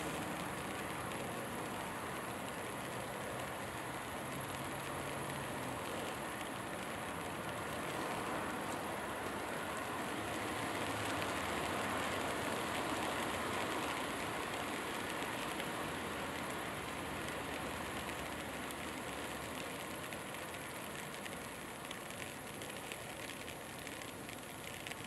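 Steady outdoor background noise, an even hiss and rumble with no distinct events, swelling a little around the middle and easing off toward the end.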